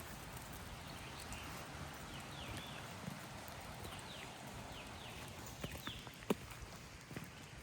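Footsteps on a woodland path, with a sharper crack about six seconds in, over a steady background rush.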